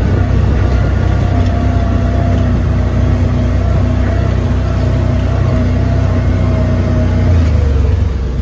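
Side-by-side engine running steadily at low trail speed. Its note drops and gets a little quieter about seven and a half seconds in.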